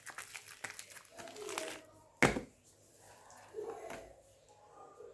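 Soap packaging being handled and opened: light rustling and small clicks, with one sharp knock about two seconds in.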